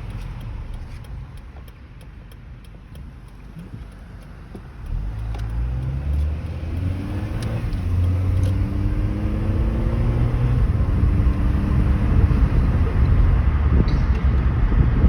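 Car engine and road noise heard from inside the cabin. The car idles low at first, then accelerates from about five seconds in, its engine note rising twice, and settles into a steady louder drone of engine and tyres.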